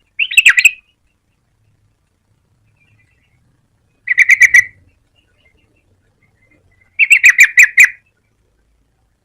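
Yellow-vented bulbul calling: three short bursts of quick, bubbling notes, each under a second long, at the start, about four seconds in and about seven seconds in, the last burst the longest.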